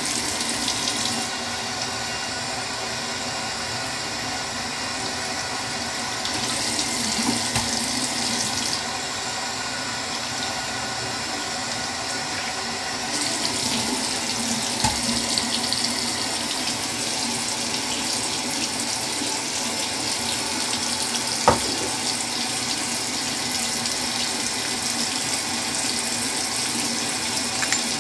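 Bathroom sink tap running steadily into the basin, the splash turning brighter and hissier for a few seconds and then again through the second half. A single sharp click about two-thirds of the way through.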